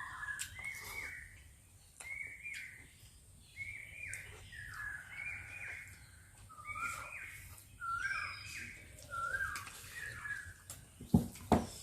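A bird calling over and over, short whistled two-note calls that step up in pitch, about one a second. Two sharp knocks come close together near the end.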